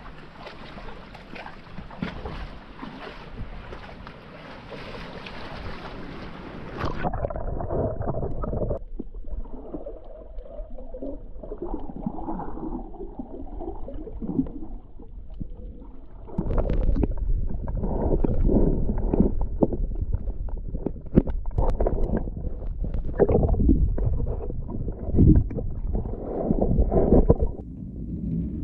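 Small waves washing and splashing against rocks at the sea's edge, then about seven seconds in the sound turns suddenly muffled as the microphone goes under water. After that come muffled underwater rumbling and gurgling of water moving around it, with louder surges and knocks from about halfway through.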